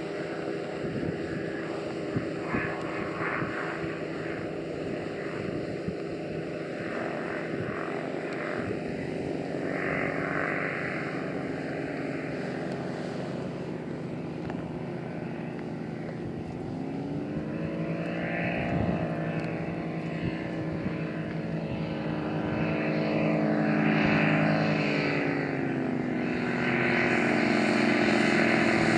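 Engine and propeller of an unmanned ultralight aircraft in flight, a steady buzzing drone. Its pitch shifts about two-thirds of the way through, and it grows louder near the end as the aircraft comes in low over the runway to land.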